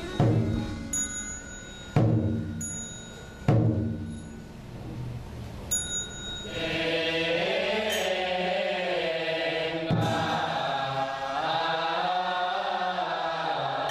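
Buddhist chant music. It opens with three deep, ringing percussion strikes and small high bell tinkles between them. From about six and a half seconds in, a group of voices chants a mantra in sustained, slowly wavering tones.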